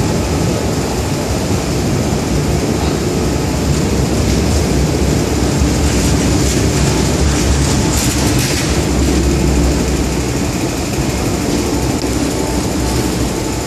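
MTR metro train running past an underground platform behind its screen doors: a loud steady rumble of wheels and motors, with a rush of higher hiss about halfway through.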